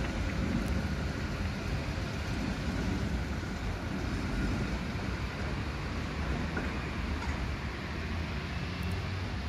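Tram running along the track, a steady low rumble.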